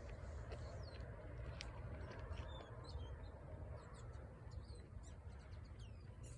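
Small birds chirping: many short, high calls and quick sliding notes, scattered throughout, over a steady low rumble.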